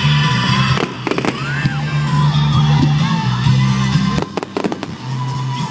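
Aerial fireworks going off: a few sharp bangs about a second in, then a quick run of cracks and bangs near the end, over music with a steady bass.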